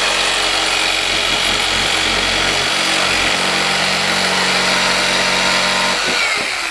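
Electric jigsaw cutting an HDPE plastic skid plate, its motor running steadily under load, then winding down about six seconds in.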